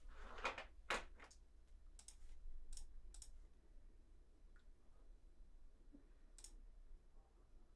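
A handful of faint, sharp clicks, about six spread unevenly over several seconds, against near silence.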